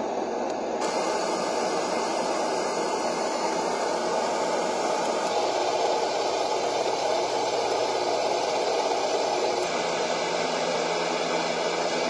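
Sleepbox portable white noise machine playing a continuous, unbroken noise sound through its small speaker. Its character changes about a second in and again near the end as it is stepped through its built-in sounds.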